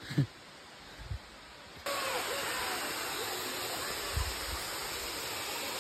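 A few low thumps, then, about two seconds in, a steady rush of flowing water comes in abruptly.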